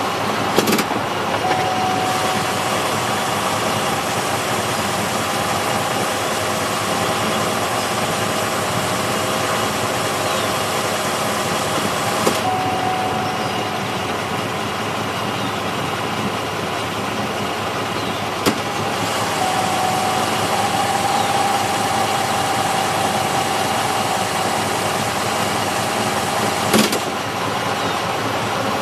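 Pontiac Grand Prix GXP's V8 idling, with a steady whine that comes in, drops out for several seconds and returns. The owner hears this strange noise only when the transmission is in Tap Shift manual mode. A few short sharp clicks sound over it.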